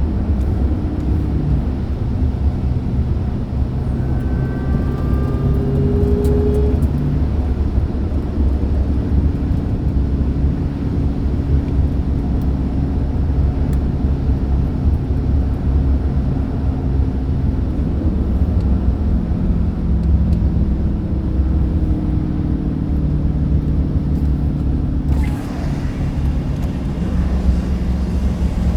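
Jeep Grand Cherokee Trackhawk's supercharged 6.2-litre Hemi V8 running steadily under a light, even throttle, its pitch shifting gently now and then. About 25 seconds in, a rush of hiss rises and fades.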